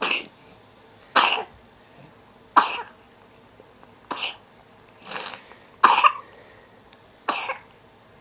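A bad cough: about seven short, sharp coughs in a row, one every second or so.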